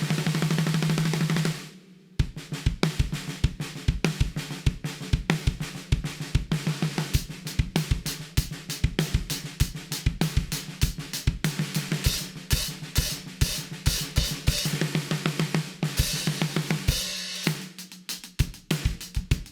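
A drum kit played to test a CMC 14x6.5-inch maple and bubinga snare drum. A sustained snare roll stops about a second and a half in. Then a steady groove of kick drum, snare and hi-hat follows, with cymbals, and thins out near the end.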